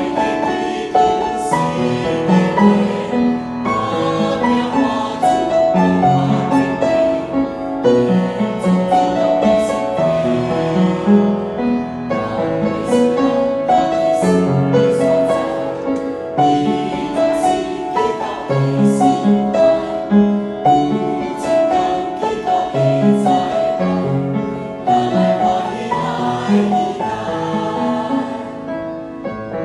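A church choir singing a hymn in Hokkien with piano accompaniment. The voices drop out near the end, leaving the piano playing on.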